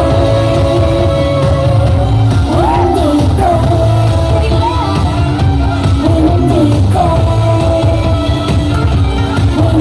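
A K-pop girl group singing live over a loud pop backing track with a heavy bass, holding long notes that bend up and down in pitch.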